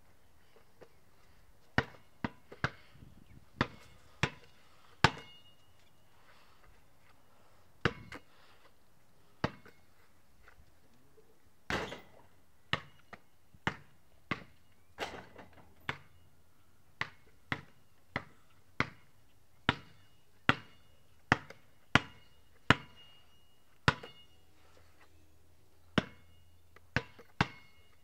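Basketball bouncing on a concrete driveway, dribbled in irregular runs of sharp bounces, many with a short ringing ping. One louder, longer hit comes about twelve seconds in.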